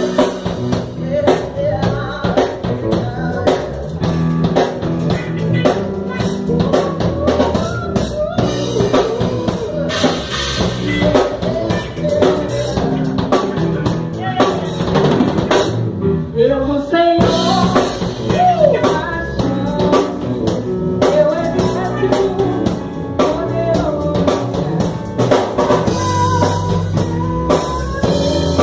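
Live band playing a gospel hymn: drum kit with snare, bass drum and rimshots, electric bass, guitar and keyboard, with a woman singing the melody.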